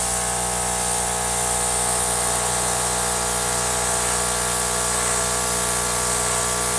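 Air gun blowing steadily, a hum with a hiss over it, as air is pushed across wet acrylic paint on a canvas.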